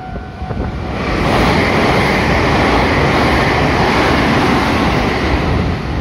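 Electric train passing close by: a loud, steady rush of wheel and air noise that swells about a second in and eases off near the end.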